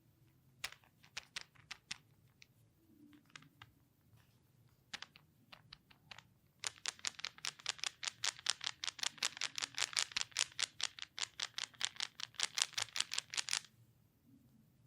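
Hands working in a head and neck massage, making sharp clicks: a few scattered ones, then a fast, even run of about seven clicks a second lasting some seven seconds, which stops abruptly near the end.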